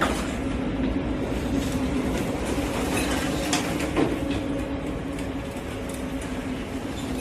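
Steady low machine drone of a ship's engine heard on board, with scattered knocks and rattles; a sharper knock about four seconds in.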